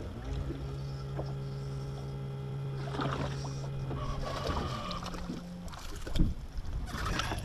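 Bow-mounted electric trolling motor on a bass boat running with a steady hum, cutting off about four and a half seconds in, followed by a brief higher-pitched hum. A single knock sounds about six seconds in.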